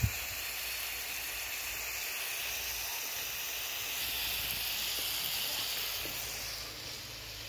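Chunks of meat sizzling on a large steel pan made from a disc-harrow disc, set over a fire in a washing-machine-drum burner: a steady frying hiss that swells a little around the middle. A short thump right at the start.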